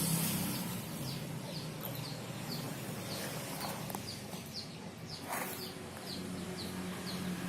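A bird chirping in a quick row of short, high, falling notes, about two a second, over a steady low hum.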